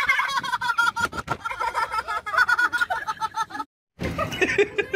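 A person laughing in rapid, high-pitched pulses that cut off suddenly about three and a half seconds in; after a brief silence, voices start.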